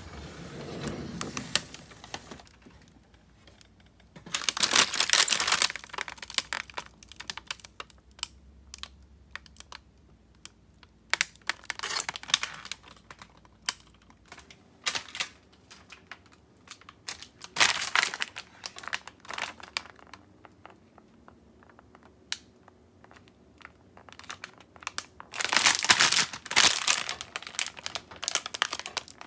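Plastic packaging of frozen gyoza crinkling in several separate bursts as the bags are handled, the loudest about five seconds in and again near the end. Just before that, a freezer drawer slides open with a low rumble.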